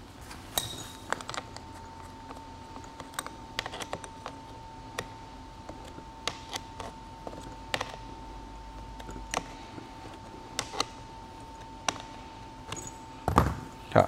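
Small metal hardware clicking and tapping as a screw and nut are fitted and tightened with a small wrench on a hydraulic joystick's cable bracket: irregular light clicks, with a louder knock near the end.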